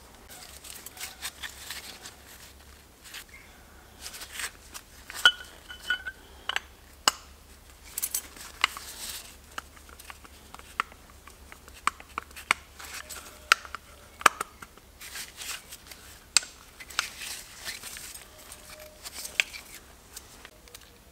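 Hand assembly of engine parts: irregular sharp clicks and metal clinks as forged steel connecting rods, gudgeon pins and pistons are picked up and fitted together, with rustling of plastic sheeting in between. A short ring sounds about five seconds in.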